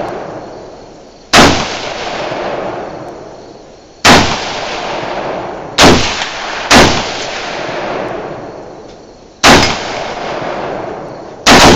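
Six semi-automatic rifle shots from an Arsenal SGL 20, an AK-pattern 7.62x39mm rifle, fired one at a time at uneven gaps of one to three seconds. Each shot is followed by a long echo that fades over about two seconds.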